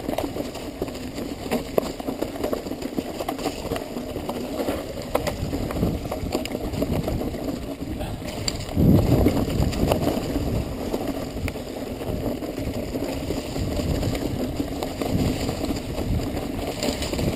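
Mountain bike descending a rough, rocky dirt trail: knobby tyres rumbling over rocks and roots, with the bike rattling and knocking over the bumps. It gets louder about nine seconds in, over a rougher stretch.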